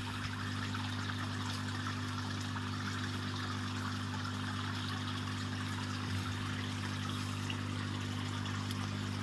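Steady water trickling in a shrimp-rearing pool over a constant low machine hum with a few evenly spaced overtones.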